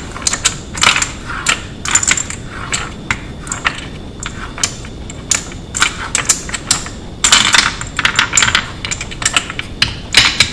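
Brass AR-15 rifle cartridges clinking and clattering against each other and against wood as they are picked out of a wooden tray a few at a time, turned over and set into the rails of a wooden magazine speed loader. The clinks are irregular, with a busier stretch of rattling a little past the middle.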